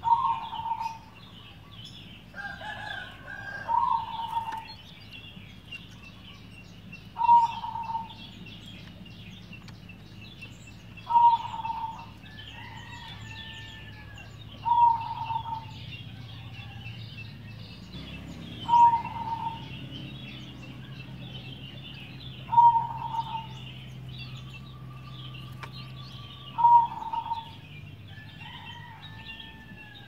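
Zebra dove (perkutut) cooing: a short call repeated about every four seconds, eight times, over a steady background of high chirping.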